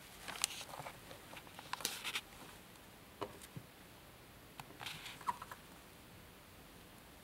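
Faint rustling and small crackles of an early-1600s book's old paper pages being handled under the fingers, in three short clusters of clicks and rustles.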